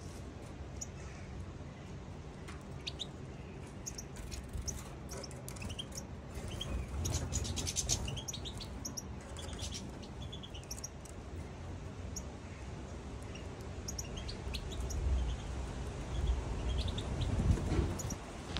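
Caged finches, a European goldfinch with Eurasian siskins, giving short high chirps and twitters, thickest about seven to eight seconds in. A low rumble runs underneath and grows louder near the end.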